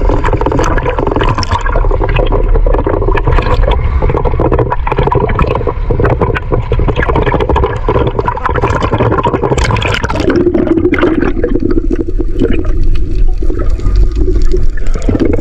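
Seawater sloshing and splashing against a camera bobbing at the surface in choppy waves, a continuous wash. From about ten seconds in it turns muffled and gurgling as the camera dips underwater.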